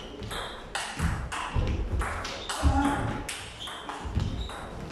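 Table tennis ball being hit back and forth in a doubles rally: repeated sharp clicks off the rubber of the bats and the table, with players' footsteps thudding on a wooden floor.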